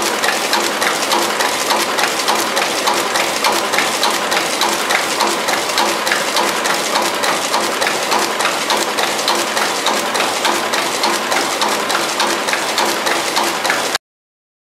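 DXDC15A coffee bag packing machine running at speed: a dense, rapid, rhythmic mechanical clatter of many small clicks, cutting off suddenly near the end.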